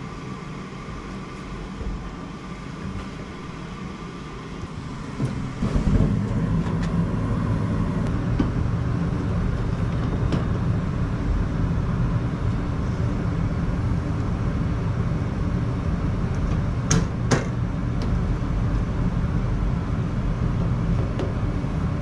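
Amana gas furnace firing, its blower coming on about six seconds in and then running with a steady low rumble. Two sharp clicks near the end.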